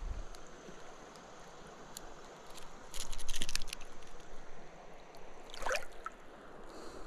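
Small splashes and trickling water around a smallmouth bass held at the water's surface while it is unhooked, with a louder burst of splashing about three seconds in.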